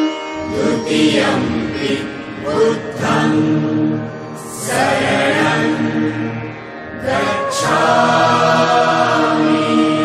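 Music from a Buddhist devotional song: a chorus chanting in phrases over instrumental backing.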